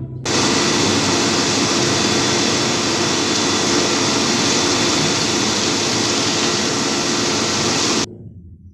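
Recorded engine sound effect, a steady loud noisy rumble with a faint hum, starting suddenly and cutting off abruptly about eight seconds in.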